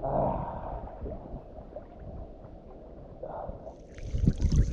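Muffled water sloshing and lapping against a phone microphone held at the surface by a swimmer in a river, a low rumble that turns louder and splashier near the end.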